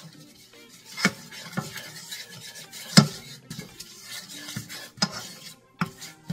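A yellow spoon stirring curry powder and spices in hot vegetable oil in a deep nonstick pan, scraping around the pan with several sharp knocks against it. The loudest knock comes about three seconds in.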